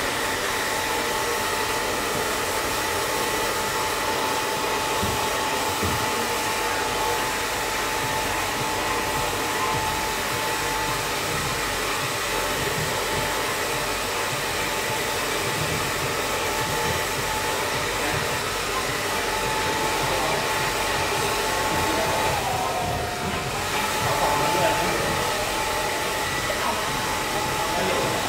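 Handheld hair dryer running steadily while drying hair: a constant rush of air with a steady motor whine. The whine dips briefly about three-quarters of the way through.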